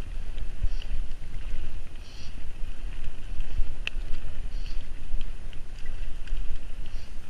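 Wind buffeting the camera microphone and the rough rumble of a mountain bike's tyres running fast over a dirt singletrack, with scattered light clicks and rattles from the bike and one sharper click about four seconds in.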